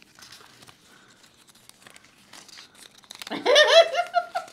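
Small folded paper slips being unfolded, with light crinkling and rustling of paper. About three seconds in, a loud voice cries out over it.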